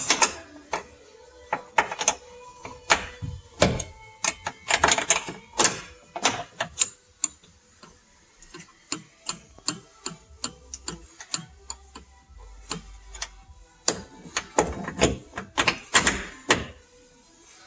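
A hand tool clicking and tapping on metal as the nuts holding a car's trunk strut are taken off: a long series of sharp, irregular clicks, bunched in quick runs about five seconds in and again near the end.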